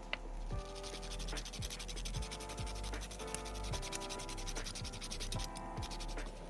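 Background music with sustained chords and a steady low beat, over a fine scratchy, crackling sound.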